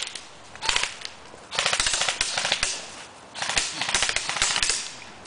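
Airsoft rifle firing on full auto in four bursts of rapid clicking shots, a short one at the start, another just under a second in, then two longer bursts of about a second and a half each.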